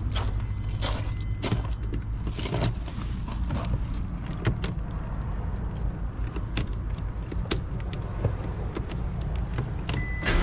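Clicks and rattles around a 2008 Porsche Cayenne being jump-started, over a steady low hum, with a high electronic tone in the first two seconds. Just before the end the engine begins to start.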